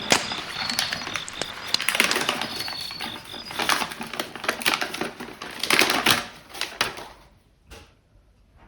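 Irregular clicking and knocking of small hard parts and tools being handled, busy at first and dying away about seven seconds in.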